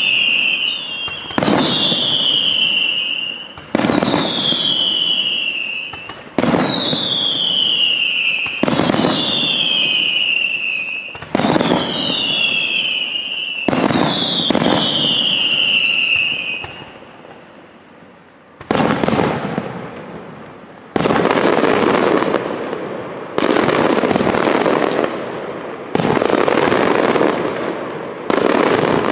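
Aerial fireworks display. For about the first sixteen seconds, shells burst about every two and a half seconds, each bang followed by a whistle that falls in pitch. After a short lull, five heavier bursts follow, each with a long noisy tail that fades over a couple of seconds.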